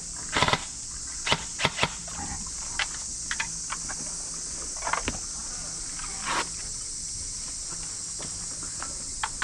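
Steady high-pitched insect chirring, with scattered short, sharp clicks and taps every second or so.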